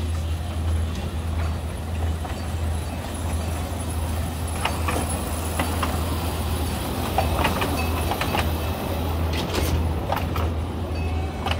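Small kiddie ride train rolling past on its narrow track: a steady low hum, with a string of sharp clacks through the second half as the cars go by.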